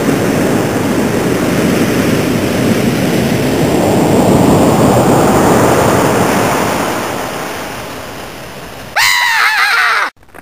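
Rushing, crashing ocean-wave noise, swelling to its loudest around the middle and then slowly fading. Near the end a short, loud pitched sound bends up and down briefly and stops suddenly.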